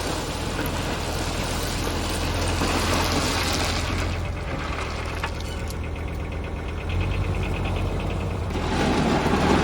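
Kubota tractor's diesel engine running steadily under a constant noisy haze, with a fast fine rattle from about four seconds in until near the end.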